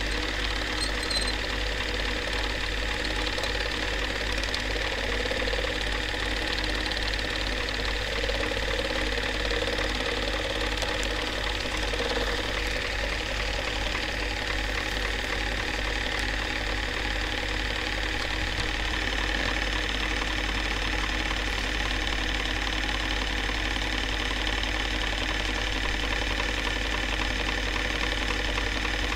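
Film projector running during the film transfer: a steady mechanical whirr with a fast, even clatter from the film mechanism.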